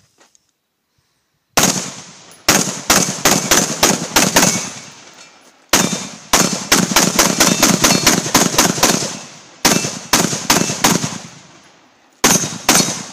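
AR-15 carbine in 5.56 with a 14.5-inch barrel and a Lantac Dragon muzzle brake, fired in rapid strings of about five or six shots a second. After a first single shot about a second and a half in, four fast strings follow, each separated by a short pause.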